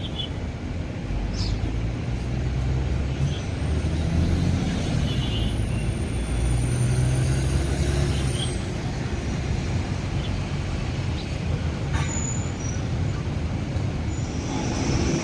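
Low rumble of road traffic and an idling bus engine close by, swelling and easing. A thin, very high whine rises and holds for a few seconds in the middle, and there is a single sharp click about twelve seconds in.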